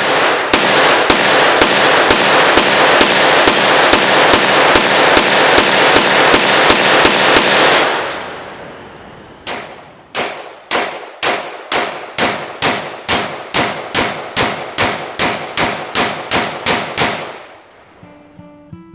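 Ruger PC Charger 9mm semi-automatic pistol firing in quick strings: a rapid run of shots for about eight seconds, then after a short pause another steady string at about two or three shots a second.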